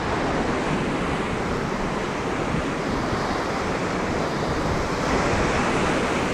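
Steady rush of water from a whitewater rapid on a swollen, fast river.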